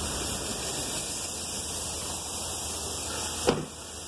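Steady rushing hiss of the air conditioning blowing inside the cab of a 2015 Toyota Hilux with the engine running; the system is on but gives no cold air inside. A brief sharp sound about three and a half seconds in.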